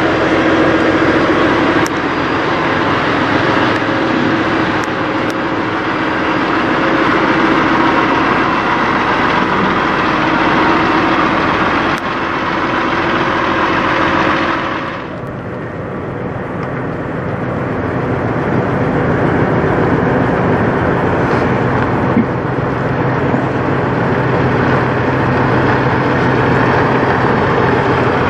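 Peterbilt semi-truck diesel engines running, a steady rumble with a low hum. About halfway through the sound changes abruptly and turns duller.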